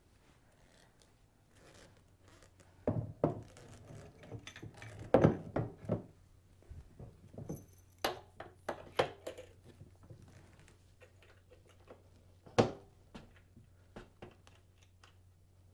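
Hard statue parts being handled and fitted together: a run of irregular knocks, clicks and light clatter, with the loudest knocks about five seconds in and a single sharp one near the end.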